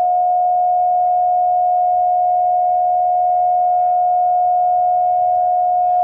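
Emergency Alert System attention signal: a loud, steady two-tone alarm, pitched down, held without a break. It marks the start of a tornado warning.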